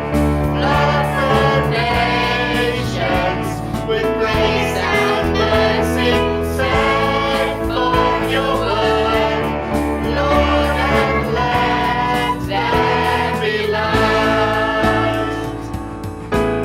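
Christian worship song: voices singing together over a band with keyboard. The singing thins out near the end, leaving the instruments.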